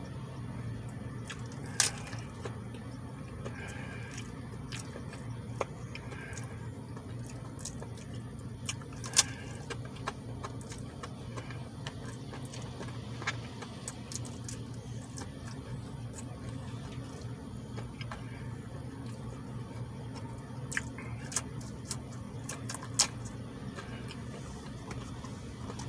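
A person chewing a taco with wet, squishy mouth sounds, broken by a few sharp mouth clicks and smacks, over a steady low hum inside a car cabin.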